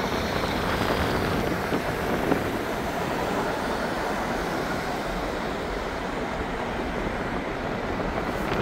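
Steady, dense street din with no single sound standing out, like traffic and crowd noise blended into one wash.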